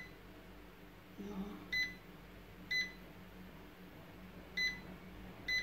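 A Black+Decker air fryer's touch control panel beeping at each button press as the cooking time and temperature are set. Four short, high beeps, irregularly spaced one to two seconds apart.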